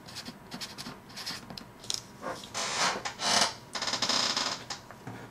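Pen scratching on paper in a run of short strokes as a word is written, then a few longer rubbing strokes across the sheet in the second half.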